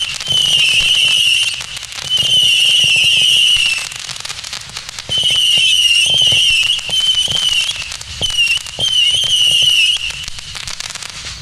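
WATT Stereo Whistler 900 firework battery firing its 8 mm whistling shots: a loud, high, slightly wavering whistle in runs of one to two seconds with short breaks, over a scatter of small pops. The whistling stops about ten seconds in and only a few fading pops follow as the battery burns out.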